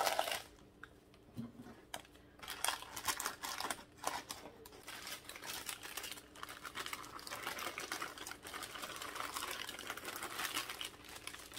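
Dry cake mix pouring out of its plastic bag into a plastic bowl: a soft continuous hiss packed with fast little crackles of the bag, starting about two seconds in after a few light clicks and rustles.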